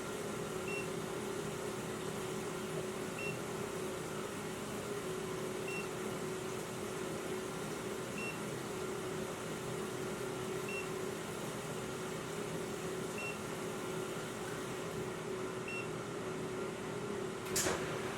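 Short, high electronic beep from a carbon monoxide detector that is sensing carbon monoxide, repeating about every two and a half seconds over a steady mechanical hum. A sharp click comes near the end.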